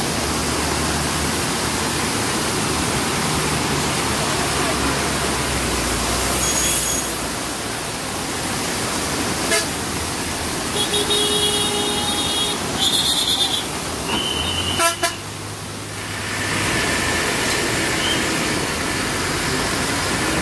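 Steady rush of floodwater and rain, with vehicle engines running as a motorbike and a truck drive through the water on the flooded road. Vehicle horns honk several times in short blasts about halfway through.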